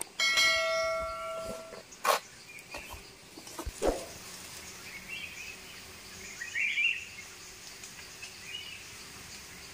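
A bell-like ding held for about a second and a half, then a sharp click: the sound effect of a subscribe-button animation. Faint bird chirps follow over a quiet outdoor background.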